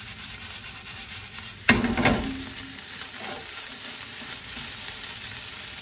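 Fried rice sizzling in a non-stick frying pan as a spatula stirs and turns it. About two seconds in, the spatula gives a louder knock and scrape against the pan.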